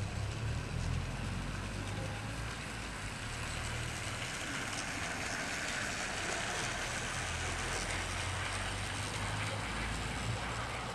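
Bachmann OO gauge model train running along a garden railway track: motor and wheels on the rails make a steady mechanical whirr that grows a little louder through the middle.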